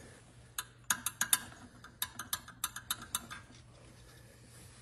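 Light, irregular metal clicks, about a dozen over two and a half seconds, as the rocker arms in the open valve train of a Honda 120/160 engine head are handled, then it goes quiet.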